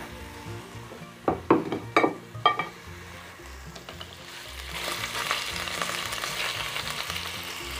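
Meat frying in its own fat and a little oil in a cooking pot, sizzling. Between one and three seconds in a few quick clinks of a utensil against the pot. The sizzle grows louder from about five seconds in.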